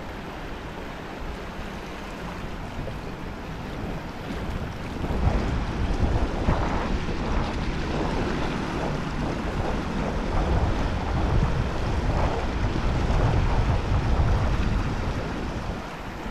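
Wind buffeting the microphone over the rush of river water, with gusts growing heavier about five seconds in.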